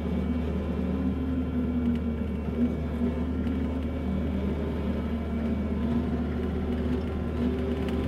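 Kubota SVL65-2 compact track loader's diesel engine and hydraulics running steadily under load during a grading pass over gravel, heard from inside the operator's cab.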